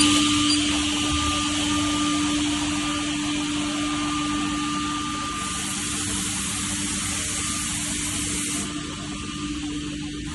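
Automatic edgebanding machine (Nanxing NB6JQF) running: a steady motor hum with a hiss over it, the hiss growing stronger and brighter from about five to eight and a half seconds in.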